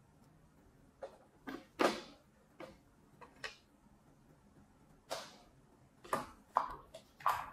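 Hand tools being packed away: about ten irregular short clicks, clacks and knocks, some ringing briefly.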